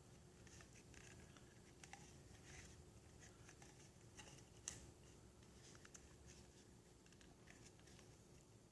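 Near silence with faint rustling and small clicks of paracord being pulled tight and wound around a smooth plastic Mora knife sheath, with one sharper click a little past halfway.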